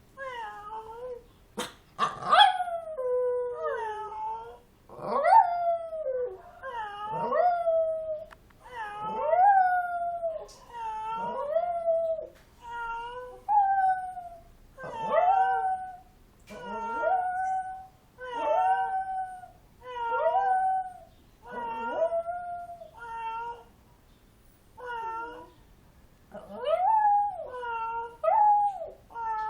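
A dog howling in a long run of short, rising-and-falling yowls, about one every second or so, sung in reply to a cat's meowing.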